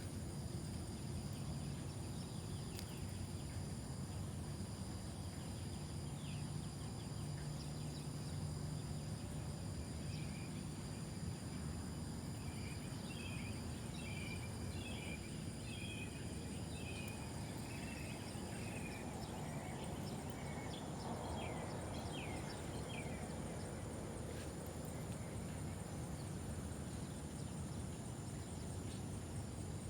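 Outdoor ambience at a fishing spot: a steady low rumble with a constant high-pitched insect drone, and a string of short chirps in the middle stretch.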